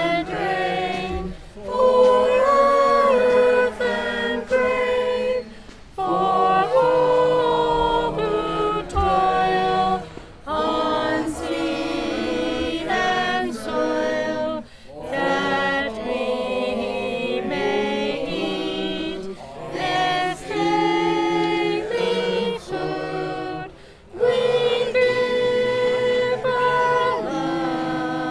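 A mixed group of voices singing an unaccompanied song together, in phrases with short breaks between them.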